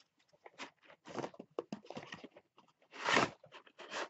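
Cardboard toy box being pulled open and handled: irregular rustling, crunching and scraping of cardboard, with a louder scrape about three seconds in.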